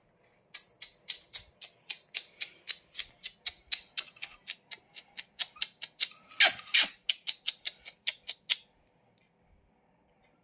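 A young puppy crying in a rapid, even run of short, high-pitched squeaks, about four a second, with two louder cries about six and a half seconds in, then falling quiet.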